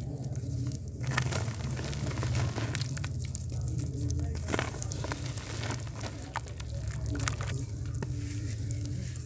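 Dry mud chunks broken and crumbled by hand into muddy water, giving a dense crackling and fizzing of many small clicks, over a steady low hum.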